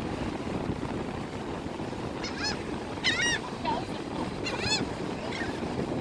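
Seagulls calling overhead in three short runs of calls, the loudest about three seconds in, over a steady hiss of wind and surf.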